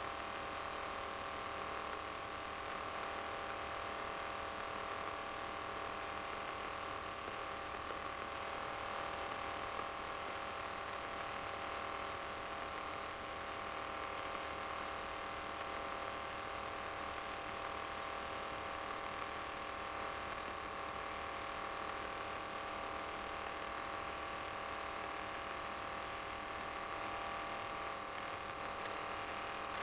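Steady hum and hiss of a light aircraft's headset intercom audio feed, with several fixed tones and the RV-9A's engine muffled beneath it, unchanged throughout.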